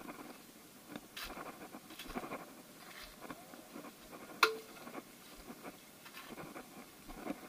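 Footsteps scuffing and rustling through dry fallen leaves and grass in soft, irregular steps, with one sharp click about four and a half seconds in.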